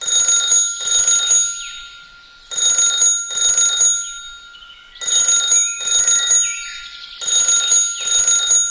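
Old-style telephone bell ringing in double rings: four ring-ring pairs, each pair about two and a half seconds apart.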